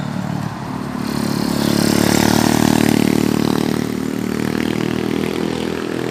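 A motor vehicle's engine passing close by, swelling to its loudest about two to three seconds in and then fading, over steady street traffic noise.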